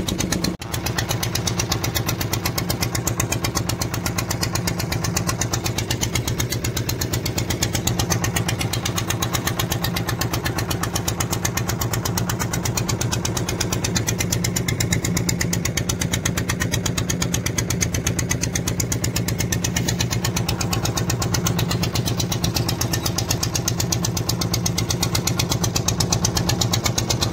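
Fishing boat's engine running steadily at an even speed, as the boat is under way trolling.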